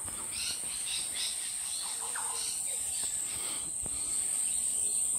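Steady high-pitched drone of insects chirring, with faint bird chirps scattered over it.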